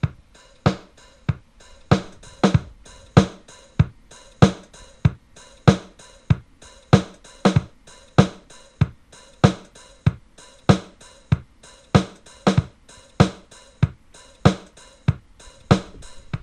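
Background music reduced to a drum beat alone: kick and snare hits in a steady pattern, about two a second.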